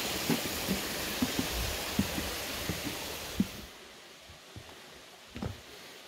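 Steady rush of a stream with a hiker's footsteps at walking pace. A little past halfway the rushing cuts off abruptly, leaving quieter, scattered steps.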